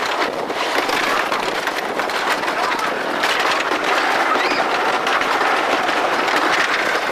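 PTC wooden junior roller coaster train running along its wooden track with a steady rattling clatter.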